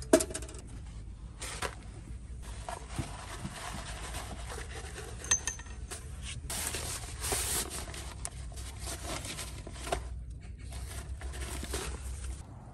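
Metal camping-stove parts knocking and clinking as they are handled and packed, with scraping and rustling in between as a fabric storage bag is handled; a sharp metal knock right at the start is the loudest sound.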